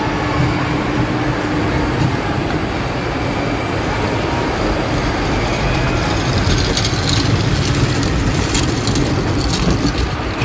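Kiddie caterpillar train ride running along its track, a steady rumble with clicks and rattles from the cars and rails growing in the second half, over the constant din of an indoor amusement hall.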